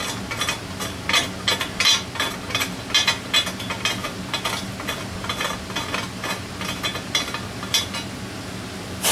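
Ratchet turning a pipe tap by hand in a hole in a cast aluminium intake manifold: irregular metallic clicks and scrapes as the threads are cut. They come thickest in the first four seconds, then thin out.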